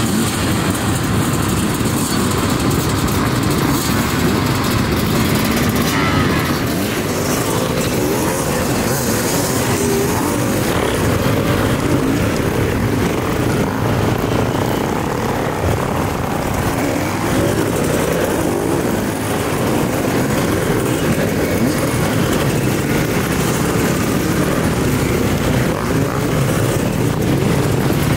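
A crowd of enduro dirt bikes running and revving together, riders pulling away one after another in a continuous engine din.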